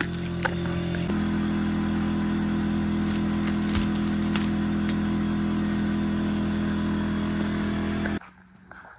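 An engine running steadily, stepping up in speed about a second in and holding there, then cutting off abruptly near the end.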